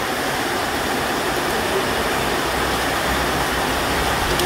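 Rain falling steadily, a continuous even hiss.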